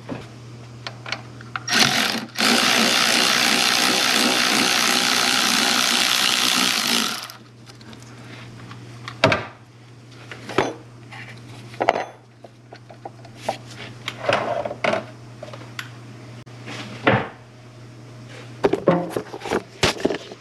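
A power tool driving a 13 mm socket, spinning a bolt loose: a short burst, then about five seconds of steady running that stops abruptly. Scattered clicks and knocks of tools and metal parts being handled follow.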